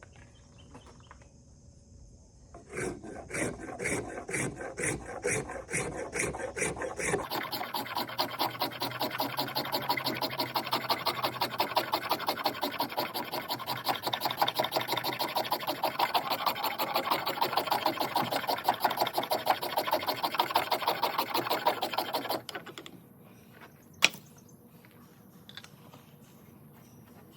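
Dogwood baton being scraped into fine dust for tinder, a rasping of rapid repeated strokes that quicken after a few seconds and stop near the end. A single sharp click follows.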